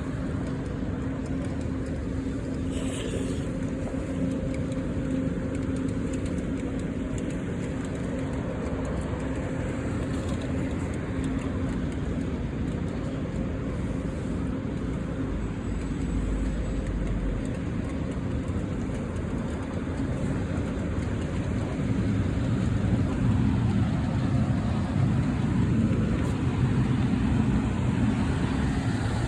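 City street traffic noise with a steady low hum, growing louder about twenty seconds in.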